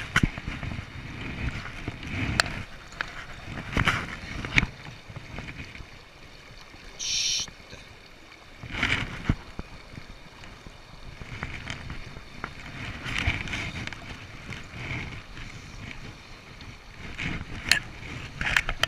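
River water and wind rumbling on the microphone, with scattered knocks and clicks from handling.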